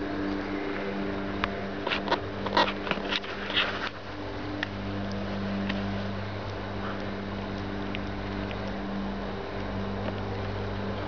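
A flurry of short squeaks and clicks from playing Eurasier puppies, about two to four seconds in, over a steady low motor hum.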